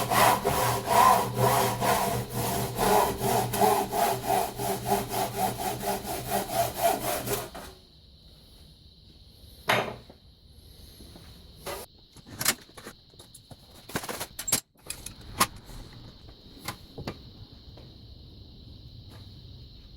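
Old Warranted Superior hand saw, rust-cleaned and freshly sharpened, cutting through wood in quick, even strokes that stop about eight seconds in. After that come scattered knocks and clicks over a faint steady high whine.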